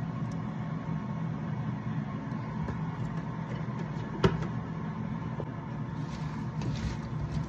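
Steady low mechanical hum with a single sharp click about four seconds in; near the end, the soft rustle of raw potato cubes being tossed by hand in a bowl.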